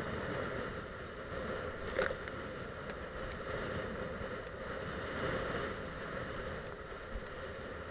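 Steady rush of wind and water as a kiteboard skims across choppy sea, with a brief louder splash about two seconds in.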